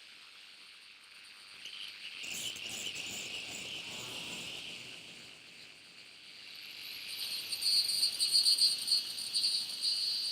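DIY noise dronebox synthesizer making a shrill, high-pitched drone that sounds like crickets. A hissy band swells about two seconds in, and from about seven seconds a piercing tone flutters rapidly.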